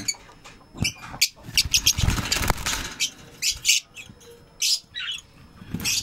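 Lovebirds calling in short, sharp, high-pitched chirps and squawks, one after another, with a brief rustling noise about two seconds in.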